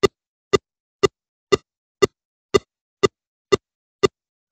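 A steady clicking in the call audio: sharp, even clicks about two a second, with dead silence between them.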